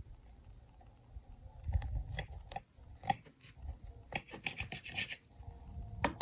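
Knife sawing through a layered bread sandwich on a ceramic plate: irregular rasping and scratching strokes of the blade through the bread, with a few light clicks.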